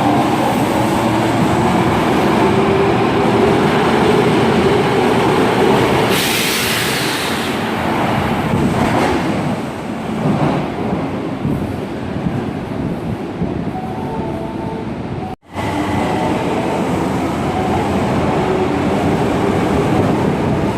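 Osaka Metro 22 series subway train running, its motors giving a whine that slowly rises in pitch, with a loud hiss about six seconds in. The sound cuts out for an instant about fifteen seconds in, and train running noise carries on after it.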